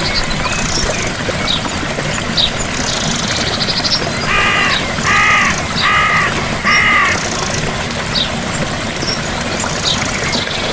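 Steady rush of a gentle waterfall. About halfway through, a large bird calls four times in a row, with short high chirps and buzzy trills scattered throughout.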